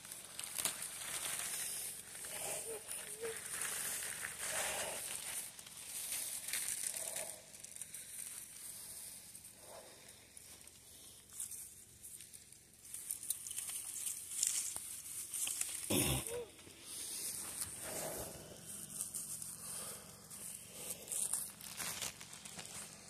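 Crinkling plastic and rustling evergreen boughs as a fresh Christmas wreath is handled and set down, in irregular bursts, with a single thump about two-thirds of the way through.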